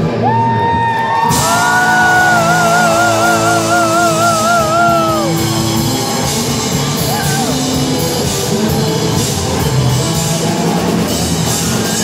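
Live rock band playing: drum kit, electric bass and electric guitar, with a long held high note that swells into a wide vibrato over the first five seconds or so, then the band plays on.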